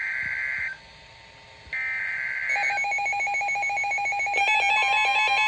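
Emergency Alert System header tones: two buzzy digital data bursts, each about a second long, with a second's gap between them. About halfway in, a pulsing electronic alert tone starts, and more tones join it near the end, marking the start of a new warning.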